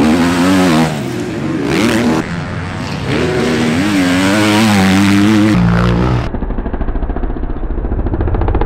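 Husqvarna MX2 motocross bike engine revving up and down through corners, its pitch rising and falling with the throttle. About five and a half seconds in, the sound changes abruptly to a duller, lower, rapidly pulsing engine note.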